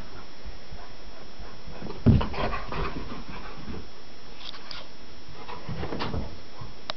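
Two Great Pyrenees, an adult and a puppy, play-wrestling: the adult dog panting, with scuffling, one loud thump about two seconds in and a couple of short squeaks later on.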